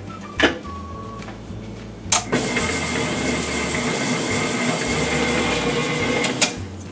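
Tilt-head electric stand mixer creaming butter and sugar: a knock as the head comes down, then about two seconds in the motor starts and runs steadily with a whine for about four seconds before cutting off with a click.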